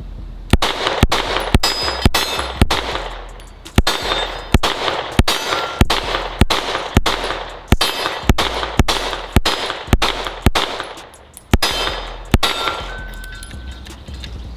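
Springfield Echelon 4.0C 9mm striker-fired pistol firing a string of about eighteen shots, roughly two a second with two short pauses, emptying a magazine without a stoppage. Steel targets ring faintly after some of the hits.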